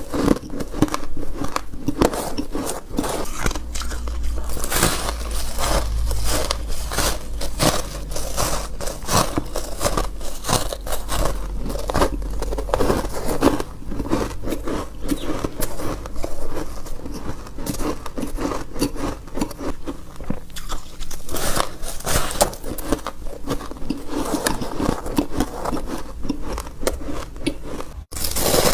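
A person biting and chewing hard, frost-coated refrozen ice, a dense run of loud crunches and crackles close to a clip-on microphone, broken only by a brief gap near the end.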